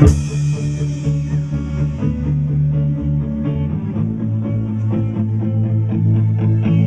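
Live rock band coming in together with a loud hit and playing an instrumental song intro: guitars and bass holding sustained chords over a steady beat.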